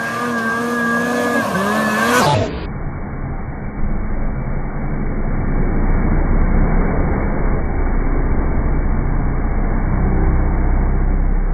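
Snowmobile engine running at high revs as the sled skims across open water, its pitch steady and then dipping about two seconds in. After a cut comes a muffled, steady rush of a Polaris snowmobile's engine and water spray passing close by.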